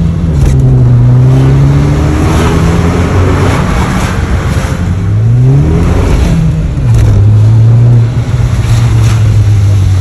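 Opel Astra OPC's 2.0-litre petrol engine through its loud aftermarket sports exhaust, heard from inside the cabin while driving. The note rises once as the car accelerates about five seconds in, then drops back to a steady low drone. Nothing in the exhaust rattles against the body, its flex pipe and hangers having been replaced.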